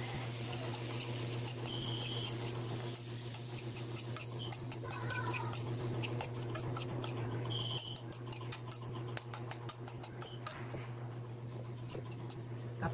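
Metal spoon stirring vegetables in an aluminium wok, scraping and clicking against the pan, with quick clicks coming thick in the middle, over a steady low hum. A brief high chirp sounds twice.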